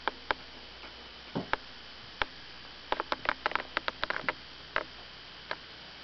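Small sharp clicks and ticks from a Great Dane puppy chewing and mouthing at a dog's tail. They come singly at first, then in a quick irregular run through the middle of the clip.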